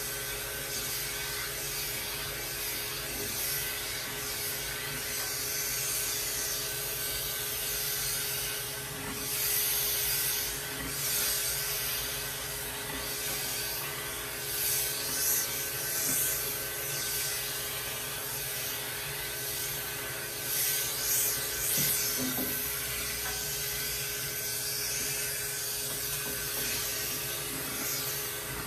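Electric pet clipper with a clipper-vacuum hose attached, running with a steady hum and a rushing of drawn air. Several short rasping bursts come as the blade passes through long cat fur.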